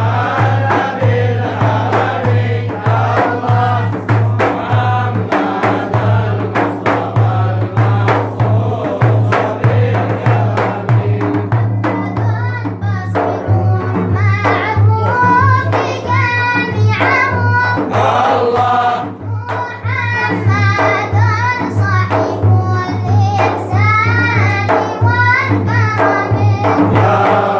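A group chanting a devotional mawlid song in praise of the Prophet Muhammad, singing together over a steady low drone with regular rhythmic beats. Higher, more ornamented melodic lines stand out in the second half.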